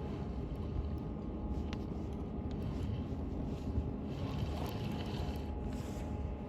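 A low, steady engine rumble with a faint hum above it, broken by a few light clicks.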